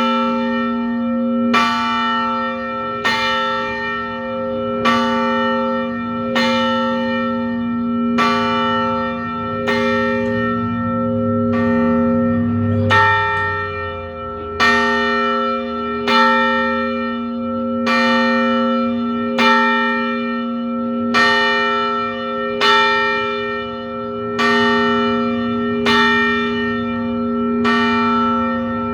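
A single church bell tolled steadily, about one stroke every second and a half. Each stroke rings out with the same set of tones and carries on into the next.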